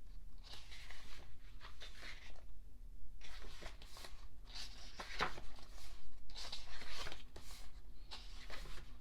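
Glossy paper pages of a thick photo book being turned, one rustling page turn every second or two.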